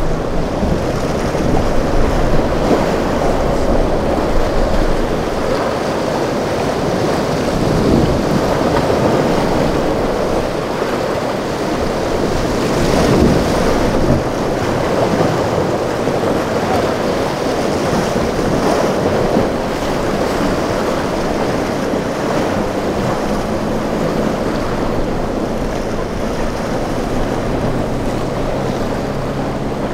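Ocean surf and rough water rushing through an inlet, with wind buffeting the microphone; the water swells briefly about halfway through. A low steady drone of a boat engine shows in the second half.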